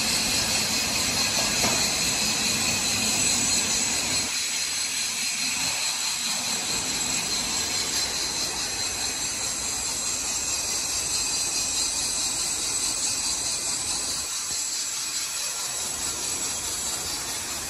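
Steady machine-shop noise: machinery running continuously with a strong high hiss and faint steady high whines, without a clear rhythm. The low end thins out twice, about four seconds in and again near the end.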